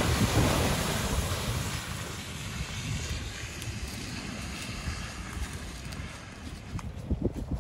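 Toyota RAV4 hybrid's tyres splashing and swishing through a muddy puddle, fading over the first two seconds as the SUV drives off, with wind buffeting the microphone.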